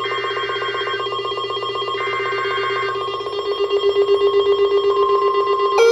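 Electronic alert alarm with a fast, even, bell-like trill. A higher tone sounds for about a second at the start and again about two seconds in. Right at the end a siren starts, rising in pitch.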